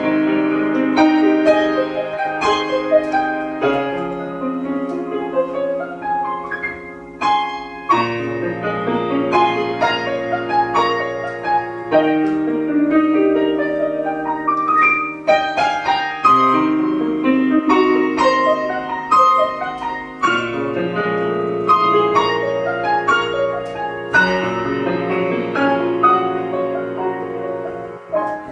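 Piano playing a slow adagio. Held bass notes change about every four seconds under a melody of struck notes.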